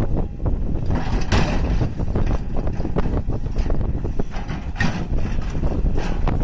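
Diesel engine of a crawler excavator running as it works its bucket into a rock pile, with a steady low rumble and wind buffeting the microphone.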